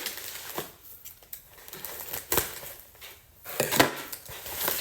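Packing material rustling and crinkling as it is pulled out of a shipping box, with several sharp clicks and knocks, the loudest a little before four seconds in.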